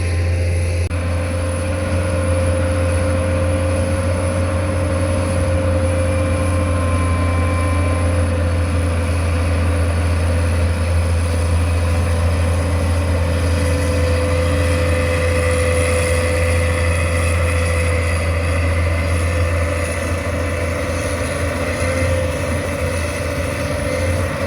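Excavator's diesel engine running steadily, a constant low hum with a steady whine above it.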